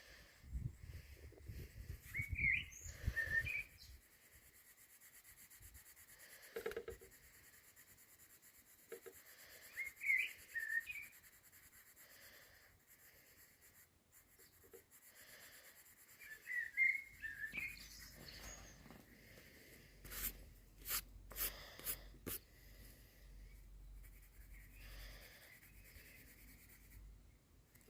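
A songbird singing a short chirping phrase three times, about seven seconds apart, over faint scratching of pencil on paper, with a few sharp clicks and low rumble late on.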